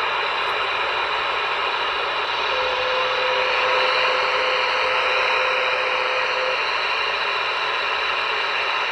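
Galaxy DX-98VHP CB radio's speaker giving a steady static hiss while no station is talking. A faint steady whistle-like tone sounds for a few seconds in the middle.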